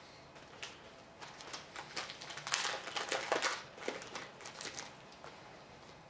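A 2008-09 Upper Deck Series 1 hockey card pack being opened by hand: the wrapper crinkles in a run of sharp rustles, busiest in the middle, with light clicks of the cards being handled.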